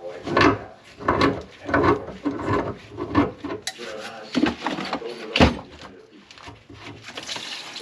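Irregular knocking, clatter and scraping of hard objects being handled, about a dozen sharp knocks with the loudest about five and a half seconds in.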